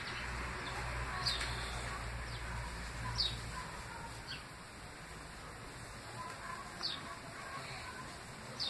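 A bird chirping: several short, high chirps falling in pitch, a second or two apart, over a steady hiss. A low hum runs underneath and stops about three and a half seconds in.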